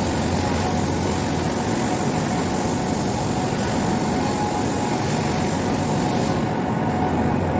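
Steady industrial machinery noise with a low hum and a few steady tones. A high hiss runs over it and cuts off about six seconds in.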